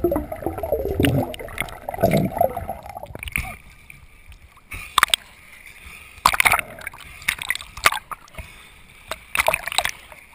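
Action camera in its waterproof housing moving underwater, with muffled sloshing and gurgling, then breaking the surface about three seconds in. After that, waves slap and splash over the housing at the waterline several times.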